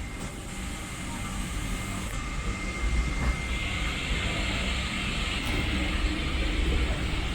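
Steady low rumble of a vehicle's interior, with a constant thin whine and a hiss that gets louder about three and a half seconds in.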